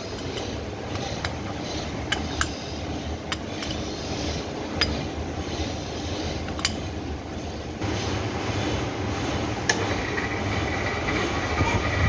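Milling machine running, its toothed disc cutter cutting clutch teeth into a metal workpiece: a steady low machine drone with scattered sharp clicks, and a higher steady ringing tone from about ten seconds in.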